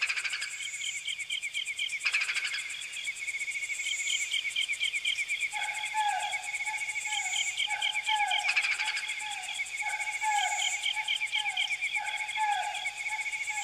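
Chorus of crickets: a steady high trill with a faster pulsing chirp above it. From about five and a half seconds in, a lower call that falls in pitch joins it, repeated a little under twice a second.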